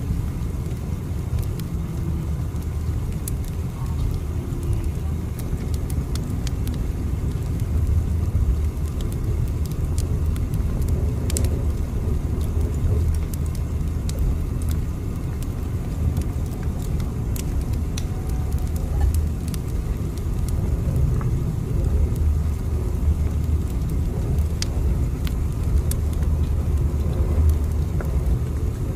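Steady low rumble of a train running, with occasional faint ticks over it.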